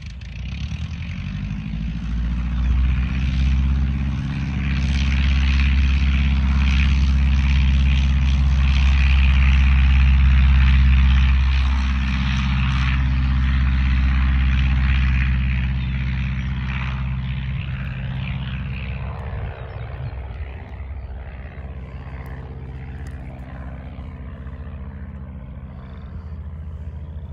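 1945 Luscombe 8A's four-cylinder Continental A-65 engine and propeller at takeoff power during the takeoff run and climb-out. The steady drone builds over the first few seconds, is loudest in the middle, and fades steadily through the second half as the plane climbs away.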